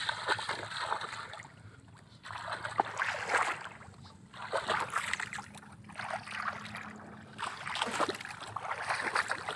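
Bare feet wading through shallow muddy paddy water: irregular splashing and sloshing steps coming in several short bursts with quieter pauses between.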